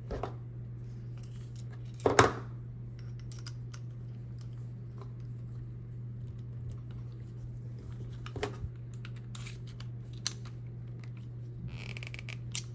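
Scattered light metal clicks and scratches from a small screwdriver and the body of an American Lock A1100 padlock as its retention screw is fitted into the bottom. The sharpest click comes about two seconds in, and a steady low hum runs underneath.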